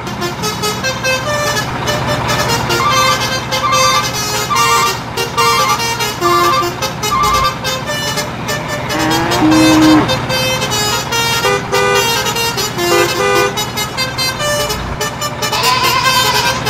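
A truck engine sound running steadily under a light melody of short, evenly spaced notes, with one sliding tone a little past the middle.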